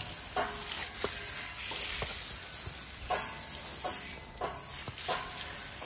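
Hose spray nozzle hissing as it sprays water over a horse's wet coat, with scattered short splatters and taps.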